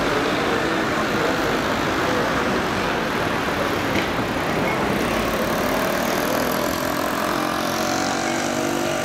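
City street traffic: cars driving through a junction over a steady traffic hum. In the second half, one car passes close, and its engine note stands out.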